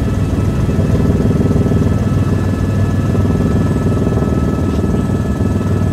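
Helicopter in flight heard from on board: a fast, steady rotor beat with a constant high whine over it.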